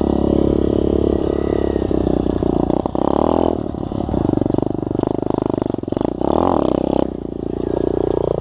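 SSR 125 pit bike's small single-cylinder four-stroke engine running under a rider, the revs rising and falling several times as the throttle is opened and closed.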